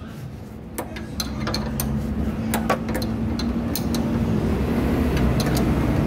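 Scattered metallic clicks from a combination wrench turning the nut of a bushing puller, which is pressing a new lower suspension-arm bushing into place. Under them, a vehicle engine runs and grows steadily louder.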